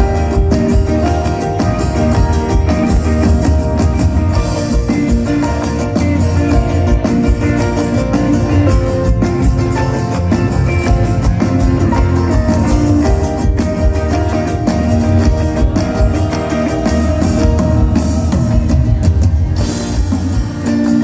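Live band playing an instrumental passage of a song, with guitar and drums and no singing.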